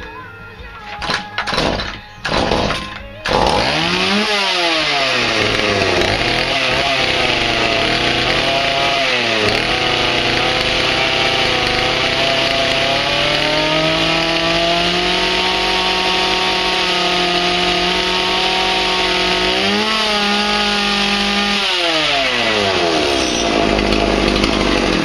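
Stihl MS180 chainsaw's small two-stroke engine firing in a few short bursts, then catching about three seconds in. It is revved up and down several times and held at high revs while the repaired chain oiler is tested.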